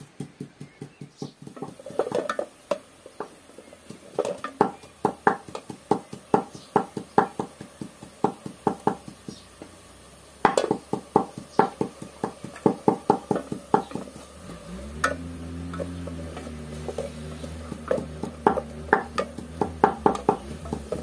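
A wooden spatula scraping and stirring onions in a steel pot, a quick run of short strokes, two to three a second. Midway a low drawn-out sound rises and holds for a couple of seconds.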